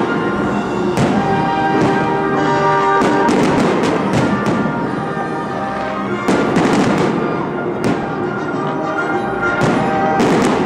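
Aerial fireworks shells bursting in repeated bangs and crackles, in several clusters, over music playing throughout.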